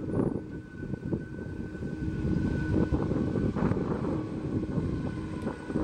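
Airbus A300-600ST Beluga's turbofan engines running at taxi power: a continuous low rumble with a steady high whine, swelling a little after about two seconds.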